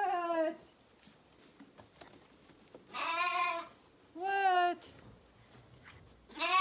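Zwartbles lambs bleating: four short, high, wavering bleats, one at the start, two about three and four and a half seconds in, and another just at the end.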